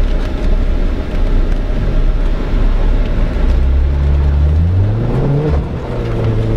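Jeep engine running while driving off-road, with a loud low rumble. About halfway through the engine pitch rises for a couple of seconds, then drops and holds steady.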